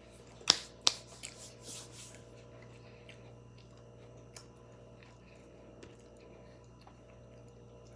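Close-up mouth sounds of eating a peanut butter and jelly sandwich: two sharp clicks about half a second in and just under a second in, then a few softer chewing sounds that die away by about two seconds. After that only a faint steady low hum remains.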